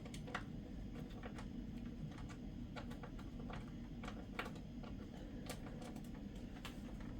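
Scattered faint, irregular clicks and scrapes of a screwdriver working a screw in a metal computer drive bay, where the screw keeps spinning without backing out, over a low steady hum.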